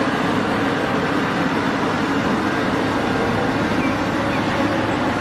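Cat 6015B hydraulic mining excavator's diesel engine running steadily under load, a constant heavy rumble with a low hum.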